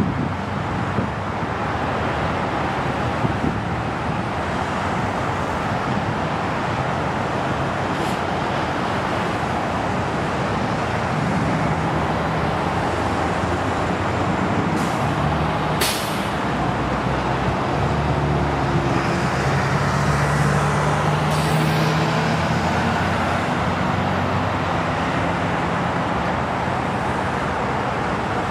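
Narrow-body twinjet airliner touching down and rolling out, a steady jet-engine rush. Its engine tone rises and grows louder in the second half, after touchdown, typical of reverse thrust being applied. A brief sharp click comes about halfway through.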